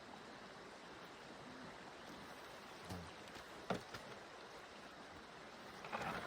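A river's steady flow as a faint, even rush. A single sharp knock comes a little over halfway through, and a louder rustle starts near the end.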